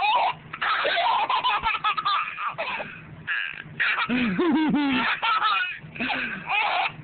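A baby laughing hysterically in repeated bursts, set off by his mother's hiccups.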